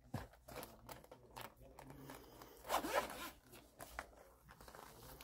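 Zipper of a molded hard-shell knife case being pulled open around its edge: a faint, irregular run of small ticks and rasps, a little louder about three seconds in.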